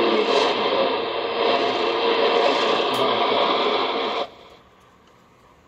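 Weak, noisy AM shortwave broadcast on 6070 kHz (CFRX) coming from a portable receiver's speaker: rough copy, buried in hiss. It cuts off suddenly about four seconds in, leaving near silence.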